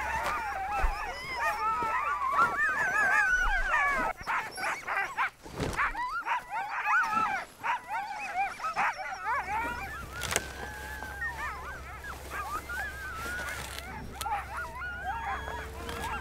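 A pack of Greenland sled dogs calling together, many high, wavering cries overlapping in a chorus. It is densest for the first few seconds, then thins out to scattered cries, with a few sharp knocks in the middle.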